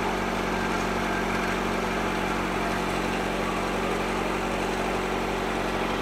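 1999 Acura Integra's four-cylinder engine idling steadily during a battery-disconnect test of the alternator. It keeps running, the sign that the alternator is charging and the battery is at fault.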